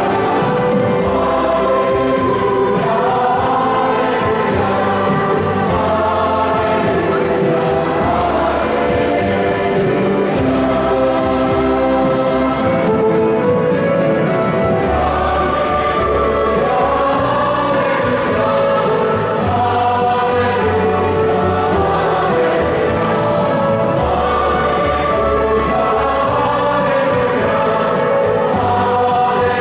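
Mixed church choir of men and women singing a Mass acclamation in several parts, with instrumental accompaniment underneath.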